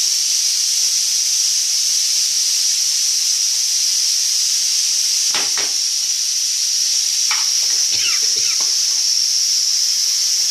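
Small brinjals (eggplants) frying in hot oil and spice masala in a pan, with a steady sizzle. A few short scrapes and knocks, as from stirring, come about halfway through and again near the end.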